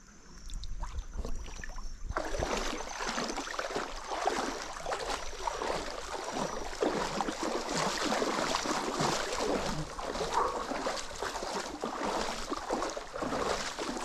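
Someone wading through a shallow stream: continuous splashing and sloshing of water around the legs, starting suddenly about two seconds in after a quiet start with a faint high thin tone.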